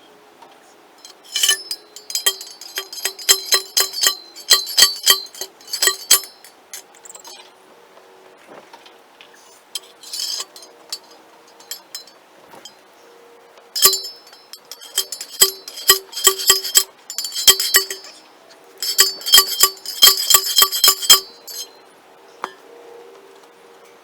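Building work played in fast forward: bursts of rapid, sharp metallic clinks and taps, several seconds each, with a short pause between bursts.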